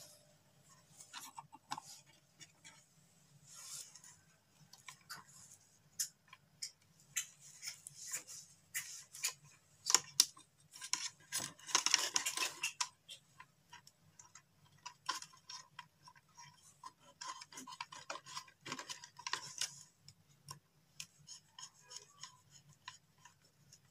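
Hands fitting a black neutral wire to the terminals of a switch-and-socket board: scattered light clicks and taps of copper wire and terminal screws, with a few short rustles of insulated wire, over a faint steady low hum.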